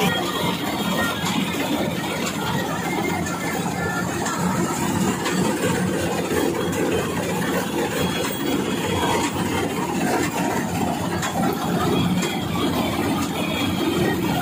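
Guru Nanak 985 combine harvester running steadily under load, its engine and working machinery making an even mechanical noise while it harvests paddy and unloads grain.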